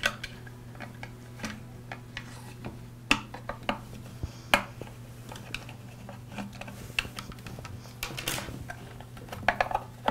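Scattered light clicks, taps and scrapes as a bent-wire hook and fingers work inside the filler opening of a plastic two-stroke trimmer fuel tank, fishing out the fuel line, over a faint steady low hum.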